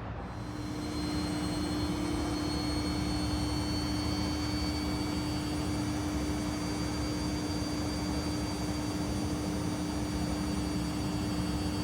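Panasonic XQG32-A312D compact drum washing machine running a spin, with a steady motor hum and a high whine. The sound swells over the first second and the whine climbs slightly in pitch over the first few seconds, then holds steady.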